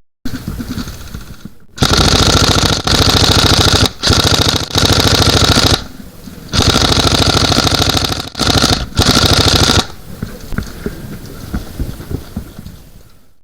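Airsoft electric gun firing on full auto: about six loud bursts of rapid, even rattling between about two and ten seconds in, the longest lasting about two seconds.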